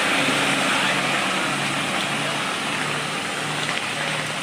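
Tour bus engine running steadily with road and tyre noise, a low hum holding under an even hiss, easing slightly in level near the end. No horn sounds.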